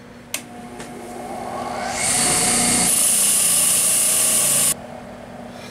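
Bench grinder starting with a click and coming up to speed. Then steel slip-joint pliers are pressed against its spinning wire wheel for about three seconds, a loud, hissing scratch as the wire brushes clean the metal around the rivet. The scratch cuts off suddenly when the pliers come away, and the motor runs on.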